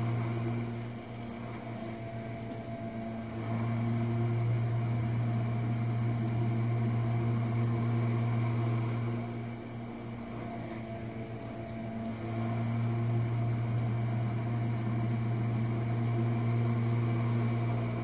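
Jenn-Air dishwasher running a rinse-only cycle: a steady motor hum that eases off about a second in and again around ten seconds in, coming back up a few seconds later each time.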